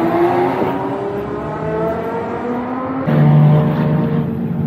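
Car engines: an engine note rising in pitch through the first second, then an abrupt change about three seconds in to a steady, low, louder engine note from a Lotus Exige V6 Cup running close by.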